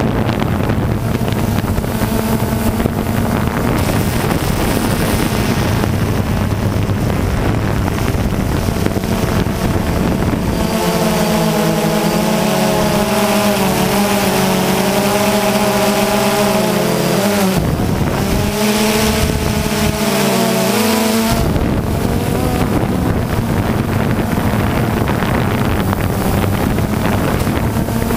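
Motor and propeller noise from the small aircraft carrying the camera, over a heavy rush of wind on the microphone. From about a third of the way in, a hum of several tones that wobble up and down together comes through for about ten seconds, then drops back into the rush.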